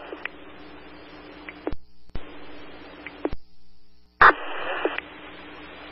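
Radio scanner static between transmissions. An open channel hisses with a faint steady hum and is broken by several sharp squelch clicks. The hiss cuts out for most of a second past the middle, then returns with a loud burst of static.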